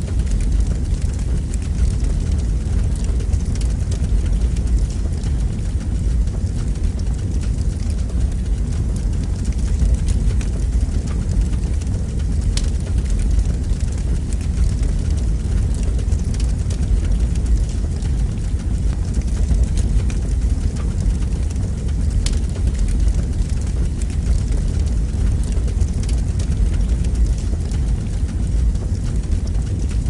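Fire burning in a fireplace: a steady low rumble of flame with a few sharp crackling pops, two of them clearer than the rest.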